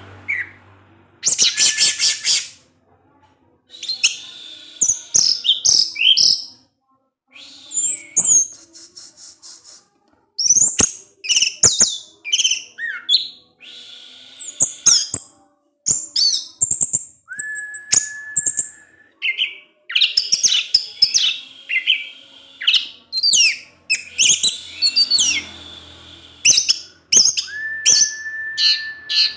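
Orange-headed thrush (anis merah) singing a rambling song of quick whistled phrases, chirps and sharp clicks broken by short pauses, with two long, level whistles held for a couple of seconds, one about halfway through and one near the end.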